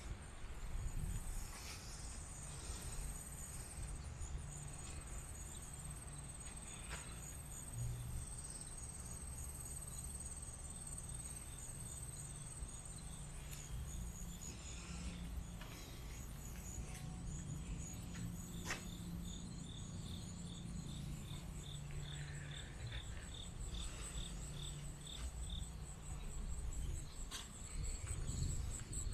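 Insects, likely crickets, chirping in fast, even pulse trains high in pitch; a second, lower-pitched pulsing joins for several seconds past the middle. Soft footsteps and a low rumble sit underneath.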